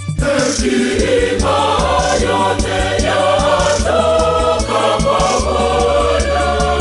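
Church choir singing a gospel song over an instrumental accompaniment with a steady beat. The voices come in right at the start.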